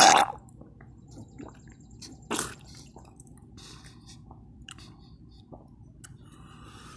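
A person coughing and retching while vomiting: a loud heave trailing off at the start and one short cough about two and a half seconds in, with faint drips and small wet sounds in between.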